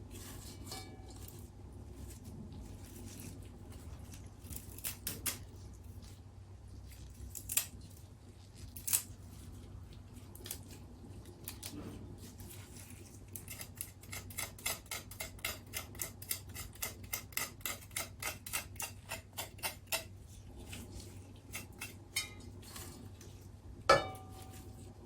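Kitchen prep sounds: light clicks and taps of utensils and dishes, with a fast run of small clicks at about four a second in the middle. A sharp clink with a brief ring comes near the end, over a steady low hum.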